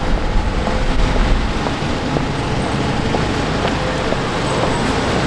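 Steady city street traffic noise: a constant low rumble and hiss of road vehicles.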